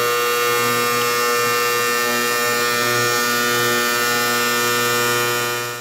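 Ultrasonic cleaner running on a tank of diesel fuel: a loud, steady electric buzz with many even overtones. It is cavitating the old lithium grease out of linear bearings. The buzz fades out at the very end.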